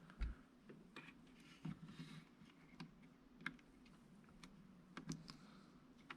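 Faint, irregular small clicks and taps of a small screwdriver and fingers working on the plastic parts of a DJI Mavic Air 2 camera gimbal during disassembly.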